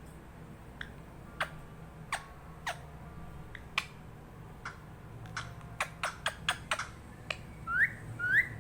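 Parrot making a string of about a dozen sharp clicks, spaced out at first and coming quickly about six seconds in, then two short rising whistles near the end.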